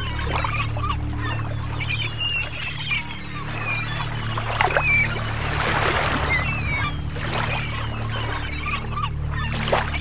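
Silver gulls calling, many short squawking cries one after another, over a steady low rumble.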